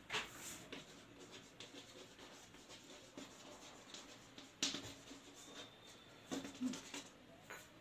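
Chalk writing on a blackboard: faint scratching strokes with a few sharper taps as the letters are formed.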